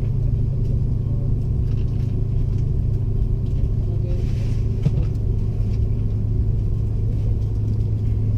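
Steady low rumble of an Airbus A330 heard from inside the passenger cabin, with a brief hiss about halfway through and a small click just after.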